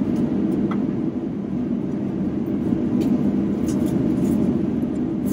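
Cabin noise of an Airbus A350-900 on its landing rollout: a steady low rumble from its Rolls-Royce Trent XWB engines and the runway, with a few faint clicks from the cabin.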